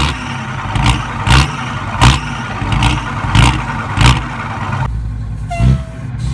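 Ford F-14000 truck's diesel engine running through a freshly fitted straight-pipe exhaust, blipped repeatedly with sharp loud peaks over a steady low rumble. About five seconds in the blipping stops and the engine settles to an even idle.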